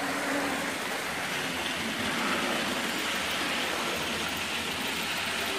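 A Hornby 00 gauge model train running along the track, its coach wheels rolling over the rails with a steady rushing rattle.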